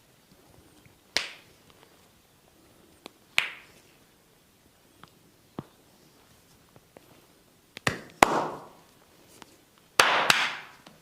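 A barber's hands slapping and chopping on skin during a massage: single strikes about one and three and a half seconds in, a pair near eight seconds and the loudest cluster near the end, several followed by a brief rush of noise.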